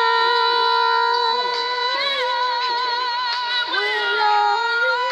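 A singing voice holds one long high note with a slight waver, then drops and moves on to other notes about three and a half seconds in.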